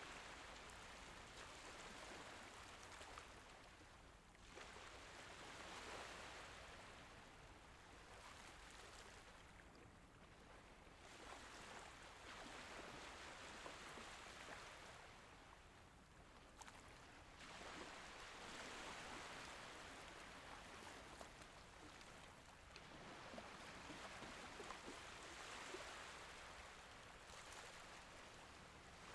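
Soft Mediterranean Sea waves washing in and drawing back, the sound swelling and fading about every six seconds.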